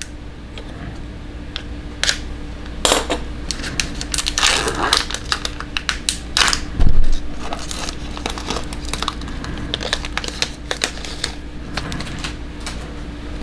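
Trading cards being handled and slid past one another, giving many sharp clicks and brief rustles, with one louder thump about seven seconds in.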